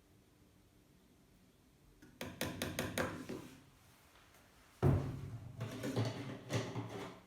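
Hard plastic knocks and clatter from handling: a quick run of clicks about two seconds in, then a sharp thump a little before five seconds, followed by rattling and knocking.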